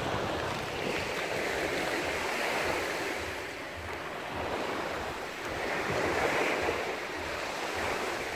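Black Sea surf washing onto the beach, swelling twice as waves break about five seconds apart.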